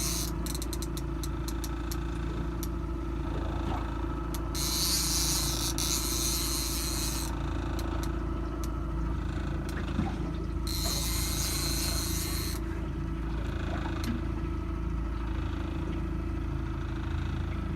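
Boat engine running steadily at slow trolling speed, a low rumble with a steady hum, with several stretches of high hiss lasting a few seconds each and a quick run of light clicks about half a second in.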